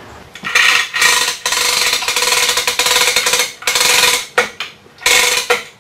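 Hoist lifting the end of a heavy jackshaft out of its bearing block: a rapid mechanical ratcheting clatter with a steady whine, one long run of about three and a half seconds and a shorter burst near the end, taking up tension on the load.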